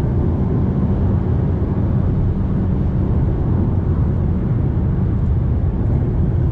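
Fiat Toro Volcano diesel pickup cruising on the highway: a steady low rumble of engine and road noise that holds even throughout.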